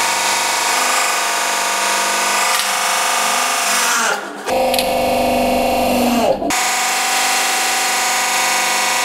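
Hydraulic press pump running with a steady, many-toned whine. Twice, about four and six and a half seconds in, its pitch falls and the sound changes abruptly, with a rougher, lower hum in between.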